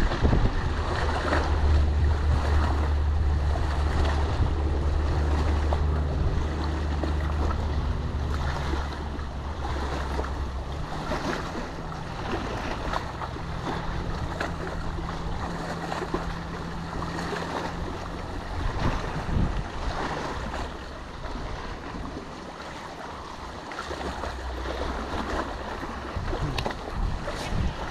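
Wind buffeting the camera's microphone: a heavy low rumble, strongest for the first ten seconds or so, easing off and coming back near the end. Behind it is the steady rush of wind and small waves on choppy open water.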